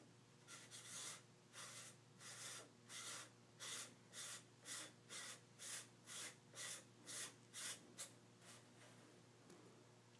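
Adapter ring being screwed by hand onto the threaded front of a Canon XF305 camcorder's lens: a faint rubbing scrape with each twist, about two a second, stopping about eight seconds in.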